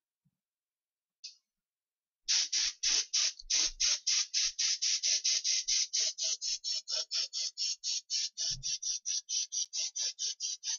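Games Workshop spray gun spraying primer: one short hiss, then from about two seconds in a long run of quick hissing pulses, about five a second. A low thump comes near the end.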